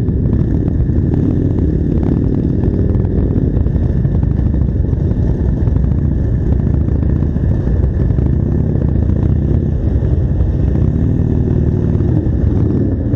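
Harley-Davidson V-twin motorcycle engines running steadily at low speed as several bikes pull away together.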